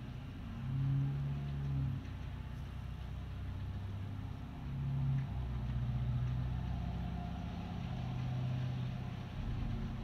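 Steady rain falling, under a low rumble that swells about a second in and again near the middle and then holds.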